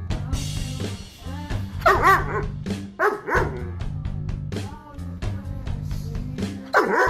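German Shepherd barking a few times, loudest about two seconds in, over background music.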